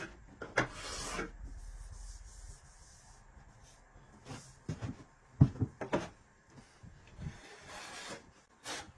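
Rubbing and scattered knocks on wood, as of a wooden tabletop being handled or wiped, with one sharp knock about five and a half seconds in.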